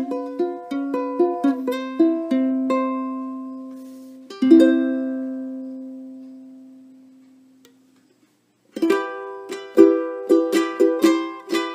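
Ukulele with a cocobolo soundboard being played: a run of plucked notes, then a strummed chord about four seconds in that is left to ring and slowly die away. After a short silence, quick plucked notes start again near the end.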